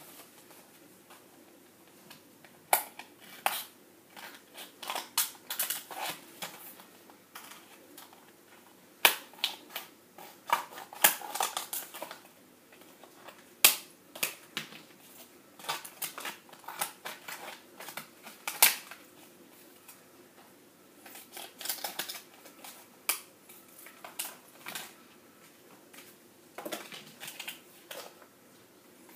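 Scissors cutting through a thin, stiff white plastic tray: irregular sharp snips and cracks, sometimes single and sometimes several in quick succession, with pauses between cuts.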